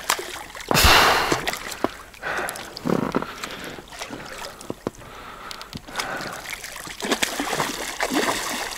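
Hooked carp thrashing and splashing at the water's surface as it fights the line, in irregular bursts, the loudest about a second in.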